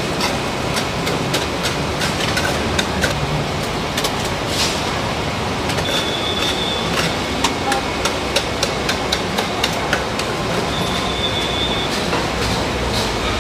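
Busy night-market din: a steady wash of background noise broken by many sharp knocks and clatter, with a quick run of knocks about halfway through.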